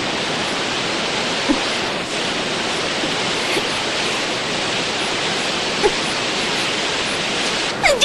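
Waterfall's steady rush of falling water, an even unbroken hiss, with a couple of faint brief sounds over it.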